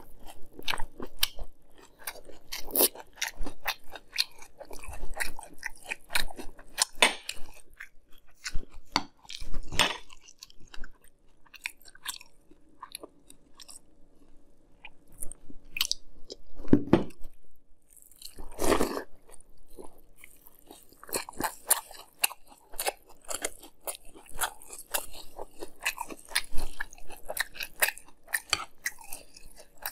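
Chewing a mouthful of Fruity Pebbles cereal in milk: wet crunching in quick, irregular clicks, with a quieter stretch around the middle.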